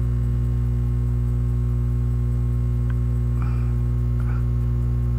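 Steady electrical mains hum, a low buzz with several overtones at an even level, with a faint click about three seconds in.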